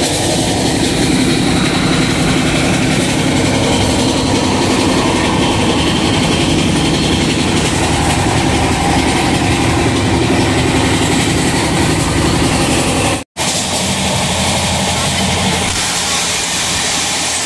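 Passenger train running at speed, heard from the open doorway of the coach: a loud, steady rumble of wheels on the rails and rushing noise. A brief break about thirteen seconds in, then the same noise carries on.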